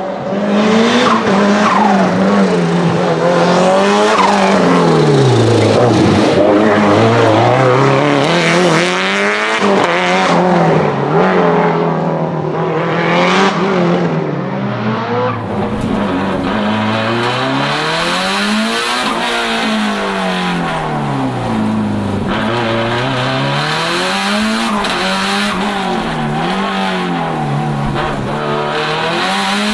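Turbocharged 2.0-litre four-cylinder engine of a 500 hp Lancia Delta HF Integrale Evo 2 race car revving up and falling back again and again as it is driven hard through gear changes and braking. About halfway a steady hiss joins the engine sound.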